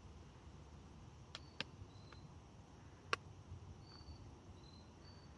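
Quiet outdoor ambience with short, high-pitched chirps on one steady pitch, repeating about every second. A few sharp clicks sound, the loudest about three seconds in.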